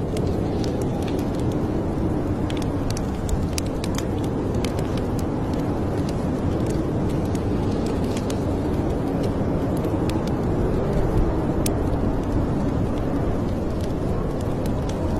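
Wood fire crackling in a fireplace: scattered sharp pops and clicks over a steady low rumble.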